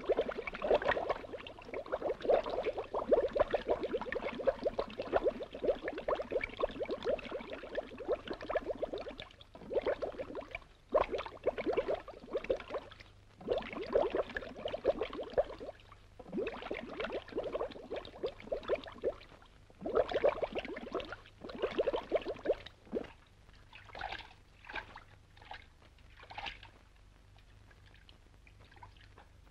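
Underwater bubbling and gurgling in repeated bursts a few seconds long with short breaks between, breaking up into short separate gurgles near the end.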